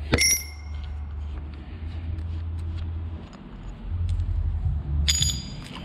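A steel punch put down on a concrete floor with a ringing metallic clink, then a second ringing metal clink about five seconds in, over a steady low rumble.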